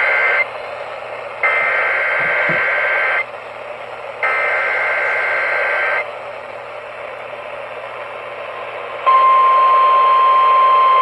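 Emergency Alert System header bursts received over a radio with steady static hiss: the shrill two-pitch data warble ends half a second in, then sounds twice more, each burst about two seconds long with a second's gap. About nine seconds in, a single steady attention tone starts and holds, marking the start of an emergency alert.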